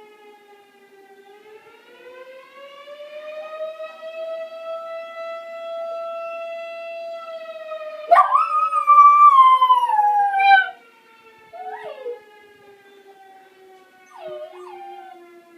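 A dog howling along with a siren. The siren's wail rises slowly, then falls. About eight seconds in, the dog lets out one loud, wavering howl of two or three seconds, then two short howls near the end.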